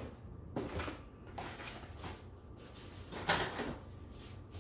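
Handling noises: packaging rustling and plastic miniatures knocking on a tabletop in several short bursts, the loudest a crinkle a little after three seconds in.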